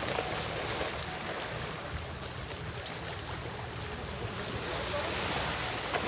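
Shallow seawater splashing and small waves washing at the shoreline as a crowd of stingrays thrashes in the shallows, swelling near the start and again near the end.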